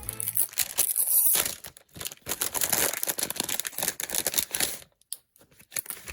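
A trading-card booster pack wrapper being torn open and crinkled by hand: a run of crackling rips lasting about five seconds, then dying away.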